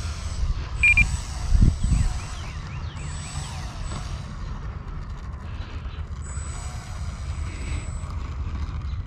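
Electric motor of an E-flite Timber RC plane running as it taxis down the runway for takeoff, faint under a steady low wind rumble on the microphone that buffets harder between one and two seconds in. Birds chirp, and a short high beep sounds about a second in.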